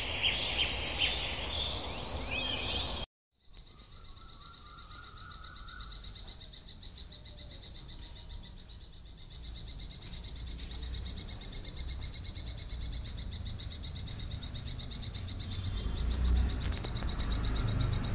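Birds chirping in quick repeated high notes for the first few seconds. After a brief gap, a steady, high, fast-pulsing trill carries on unbroken.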